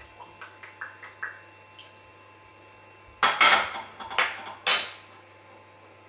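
Kitchen clinks and knocks: faint clicks, then a loud knock about three seconds in followed by two sharp clinks, as a fish sauce bottle is set down on the countertop among glass and ceramic dishes.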